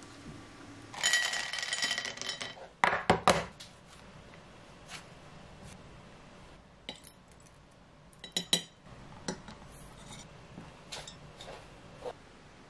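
Kitchen clatter at an enamelware bowl. A ringing, rattling clatter runs from about one second in, a cluster of sharp knocks comes around three seconds, and a few more knocks and lighter taps and clicks follow later.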